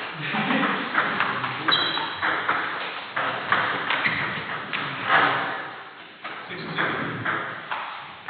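Table tennis ball being hit back and forth in a doubles rally: quick, irregular clicks of the ball off the bats and bouncing on the table, echoing in a large hall.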